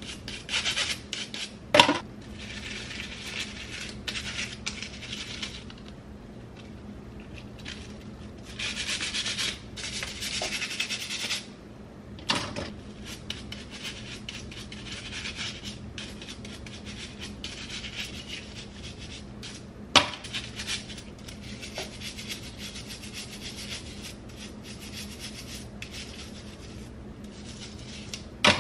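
Bristle cleaning brush scrubbing a soapy comb in bursts of rapid strokes, with two sharp knocks, about two seconds in and about twenty seconds in.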